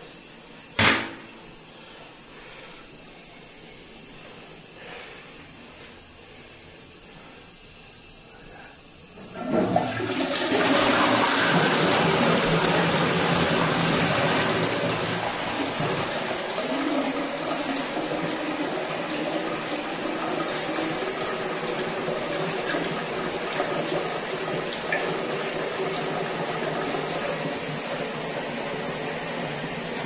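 A sharp knock about a second in, then, some eight seconds later, a mid-level Dudley Tri-shell cistern flushing into a Trent Penton toilet pan. Water rushes in suddenly, eases slightly after a few seconds, and keeps running steadily into the bowl: a good flush.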